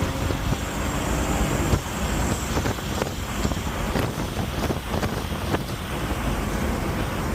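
A car driving, heard from inside the cabin: a steady low engine and road rumble, with a few sharp ticks scattered through it.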